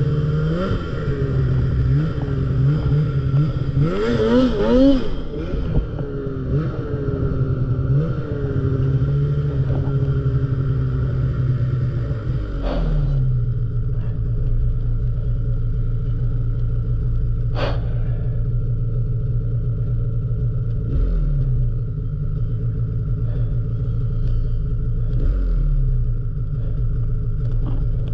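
Snowmobile engine running under throttle in deep snow, its pitch rising and falling with repeated throttle changes, climbing highest about four seconds in. About halfway through it settles to a lower, steadier pitch, easing off briefly twice near the end, with a single sharp clack in between.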